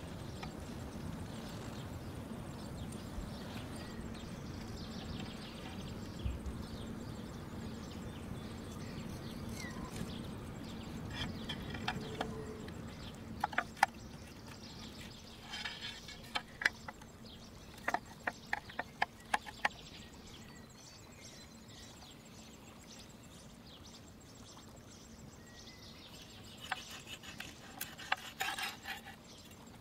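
Knife cutting through the crisp, scored rind of a roasted pork tomahawk steak on a wooden board: runs of sharp crunches and knocks, one about halfway through and a shorter one near the end.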